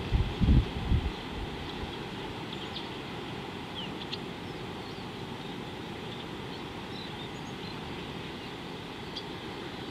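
Outdoor ambience: a steady low rumble of wind on the microphone, with a few low thumps in the first second. Faint short bird chirps come and go.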